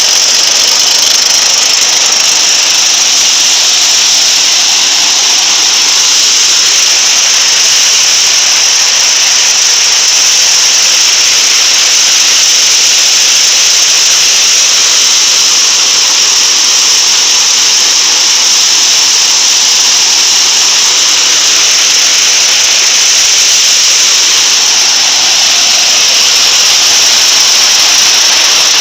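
Motorised rice thresher running steadily, a loud continuous high-pitched whirring hiss.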